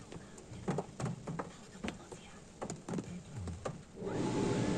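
Inside a car in an automatic car wash: scattered drips and taps of water on the body, then about four seconds in a sudden, loud, steady rush of spray water hitting the car as the wash jets start.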